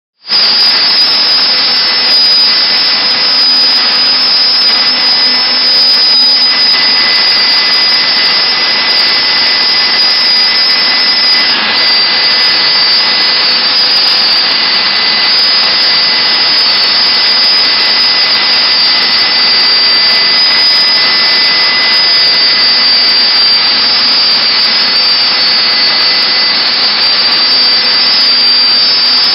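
CNC router spindle running at speed and milling wood: a loud, steady high-pitched whine over rasping cutting noise that cuts in abruptly at the start.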